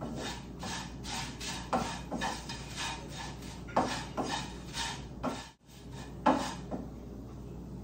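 A wooden spatula stirring and scraping dry pieces of chapati around a non-stick kadai as they roast in a little oil with chilli powder. It gives a run of short, uneven rasping scrapes, roughly two a second, with a brief gap a little past halfway.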